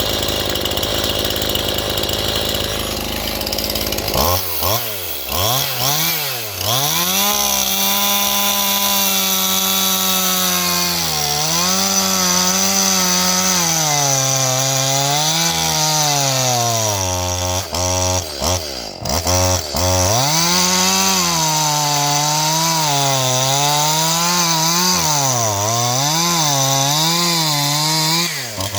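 Stihl MS181 two-stroke chainsaw cutting wood at high revs. About four seconds in, a steady engine note takes over; its pitch keeps sagging and recovering as the chain bites into the wood and is eased off.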